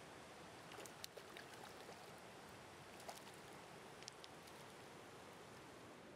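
Faint, steady rush of a mountain trout stream flowing, with a few short, sharp ticks about a second in, at about three seconds and at about four seconds.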